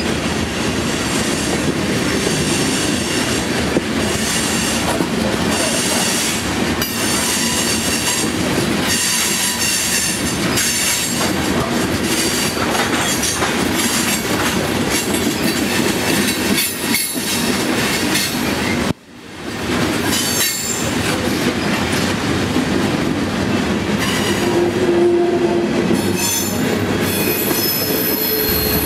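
Freight train of tank cars rolling past close by on curved track: steady rumble and clickety-clack of steel wheels over the rails, with high-pitched wheel squeal that is strongest near the end. The sound drops out sharply for a moment about two-thirds of the way through, then returns.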